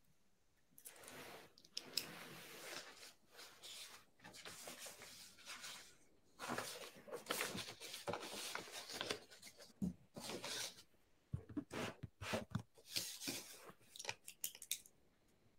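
Faint rustling and scraping noises in irregular bursts, with short pauses between them.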